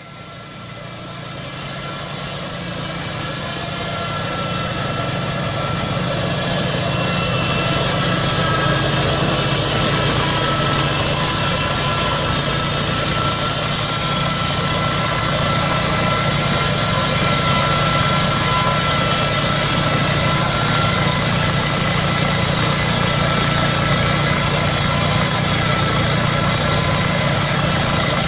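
Tow-behind flail mower with an 18 hp Briggs & Stratton V-twin engine running steadily while it cuts tall grass, with a steady high whine over the low engine rumble. The sound fades in over the first several seconds, then holds even.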